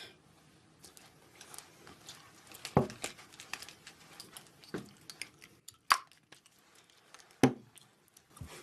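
Cosmetics and clothing being handled up close: rustling, small clicks and taps of containers, with three louder taps about 3, 6 and 7.5 seconds in.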